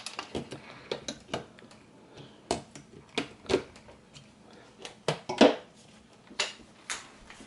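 Irregular small clicks and clinks of hand tools and battery cells being handled while the cells' terminals are worked on, with a few louder knocks.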